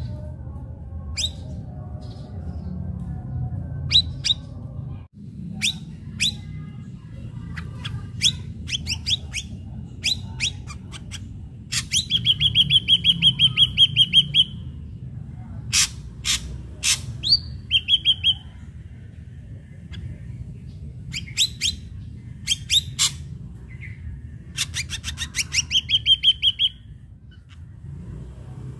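Ashy drongo singing: a string of sharp, high whistled notes and calls, twice breaking into a fast, even trill of repeated high notes, once near the middle and once near the end. A steady low rumble lies underneath.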